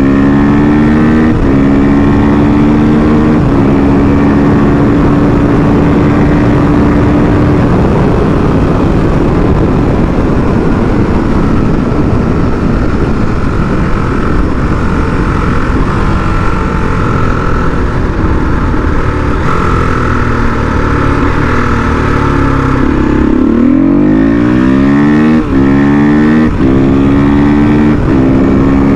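Husqvarna supermoto's single-cylinder engine running at road speed, shifting up twice in the first few seconds, then holding speed under heavy wind noise. About 23 seconds in the revs drop sharply, then climb again through several quick gear changes.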